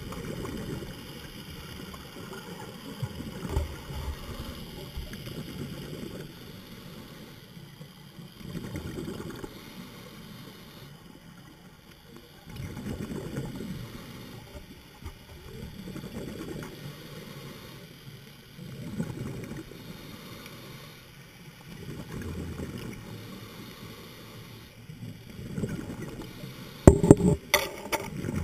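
Underwater sound of a scuba diver's regulator: bursts of exhaled bubbles rumbling and gurgling every few seconds over a steady hiss. Near the end come a few loud, sharp knocks.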